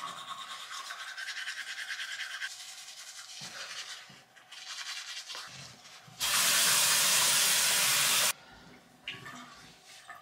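Teeth being brushed, a fast scrubbing for the first few seconds. About six seconds in comes a loud, steady spray hiss lasting about two seconds, which cuts off sharply.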